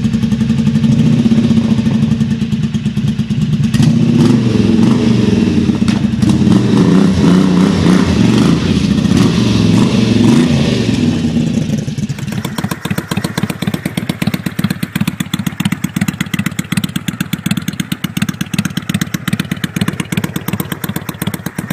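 Kawasaki VN750 Vulcan V-twin motorcycle exhaust, the engine revved up and down in repeated blips for the first half. About halfway through the sound changes abruptly to a steady, evenly pulsing idle.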